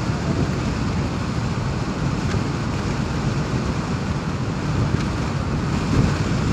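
Steady rush of wind and road noise from a moving vehicle, with wind buffeting the microphone.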